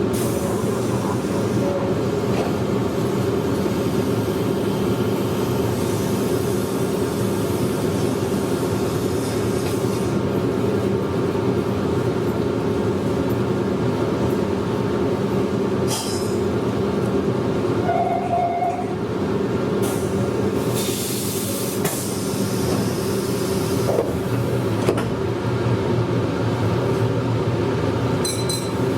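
Meitetsu 100 series electric train running steadily, heard from inside the train: a continuous rumble of wheels on rail with a steady motor hum. A few short hisses come through, the longest about two-thirds of the way in.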